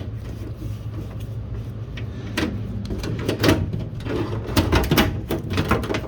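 Scattered clicks and knocks of a van sliding door's handle and release cable being worked free and fed through the door panel, over a steady low hum.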